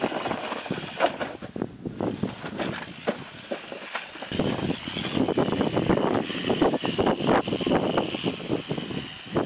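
Radio-controlled rock crawler driving over loose wooden boards: its tyres and chassis knock and clatter on the planks, and from about halfway through the steady whine of its electric motor and gears runs under the clatter.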